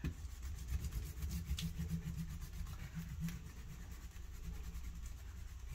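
Dry-erase whiteboard being wiped clean, with a quick run of rubbing strokes that trails off to fainter rubbing after about three and a half seconds.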